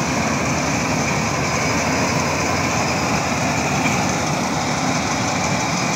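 Tracked rice combine harvester running steadily as it harvests standing rice: a continuous engine drone with mechanical noise over it.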